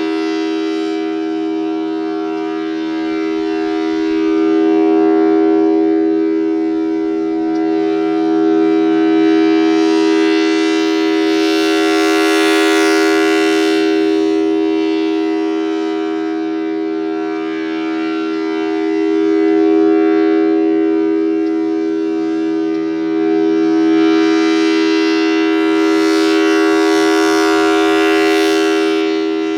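Federal Signal Thunderbolt 1000T outdoor warning siren with a 4/5-port rotor, sounding a steady two-note chord at full speed with no rise or fall in pitch. Its sound grows brighter and louder twice as the rotating horn sweeps toward the listener.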